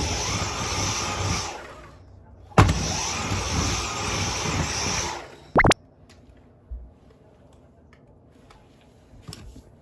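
Dyson V10 cordless stick vacuum's motor switched on and run for about two seconds, stopped, then run again for about two and a half seconds, ending with a brief rising whine; this vacuum has lost its suction and picks up no dirt. After that only a few faint clicks.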